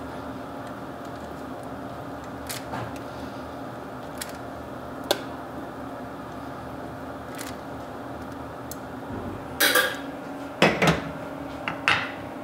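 A metal spoon scraping and tapping as tomato sauce is spread over a tortilla wrap, with a few light clicks, over a steady low hum. Near the end, several louder clanks as the stainless steel pot is set down on the gas hob's grate.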